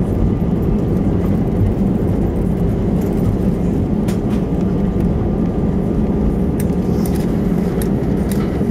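Cabin noise of an Airbus A320 rolling out on the runway just after touchdown: a steady low rumble of the engines, airflow and wheels on the runway as the jet slows with its ground spoilers up.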